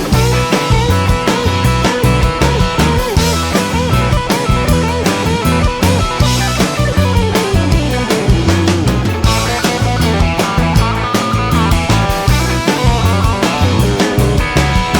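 Background rock music with electric guitar over a steady drum-kit beat.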